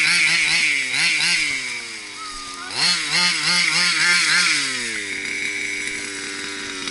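The small two-stroke petrol engine of an HPI Baja 5 radio-controlled buggy, revved up and down in quick throttle blips, dropping lower and quieter in the middle, then revving in blips again before settling to a steady lower idle about five seconds in.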